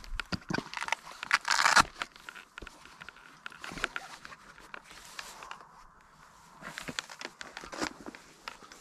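Rustling and crinkling of a Jackery folding solar panel with a fabric back being handled and unfolded, with a louder rustle about a second and a half in, scattered clicks and steps on grass.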